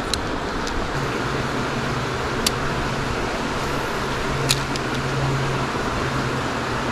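Steady rush of flowing river water with a low, even hum underneath, broken by a few sharp clicks: one at the start, one about two and a half seconds in, and a pair about four and a half seconds in.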